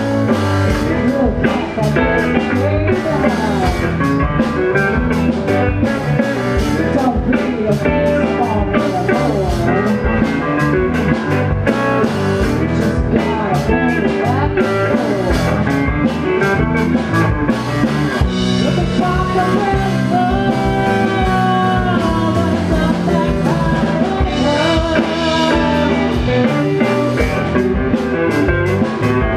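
Live band playing a song: a woman singing lead at the microphone over electric guitar and a drum kit.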